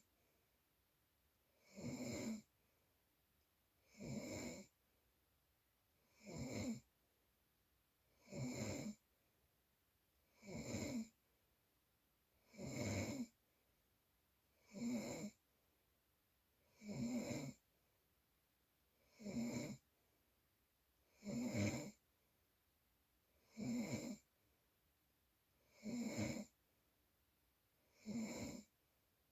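Steady, regular snoring, one snore about every two seconds, with quiet breaths in between.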